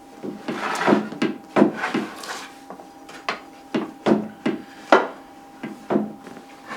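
Wooden boards being handled and set down: a string of irregular knocks, with scraping as boards slide against each other during the first two seconds or so.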